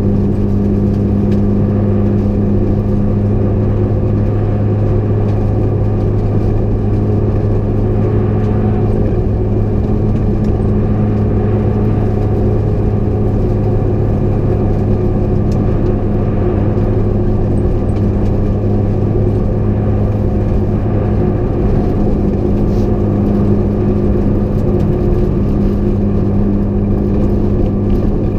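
Rally car's engine droning at steady, unchanging revs, heard from inside the cabin, over a constant rush of tyre and road noise on the snow-covered road.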